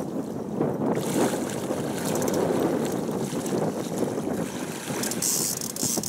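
Wind rumbling on the microphone over open river water, with a brief splash about five seconds in as a hooked white sturgeon thrashes at the surface.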